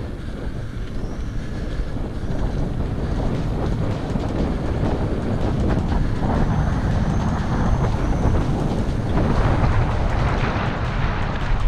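Wind rushing over the microphone with low rumble while riding a full-suspension bicycle, getting a little louder and harsher in the last few seconds.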